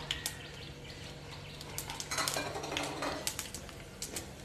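Mustard seeds and dried red chillies frying in hot oil in a kadai, the seeds popping in scattered sharp crackles over a faint sizzle, thickest midway through.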